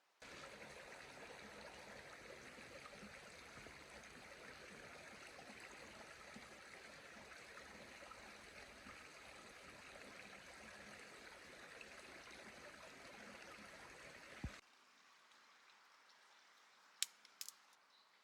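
Steady rush of running water, like a small stream, which starts and cuts off abruptly. It is followed by a sharp click and then a few light clicks near the end.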